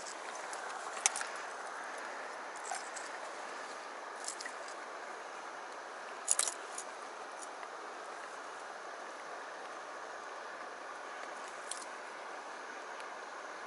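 Steady rush of a flowing stream, with a few sharp small clicks of tackle handled while a hooked cherry salmon is unhooked in a landing net, the loudest about six seconds in.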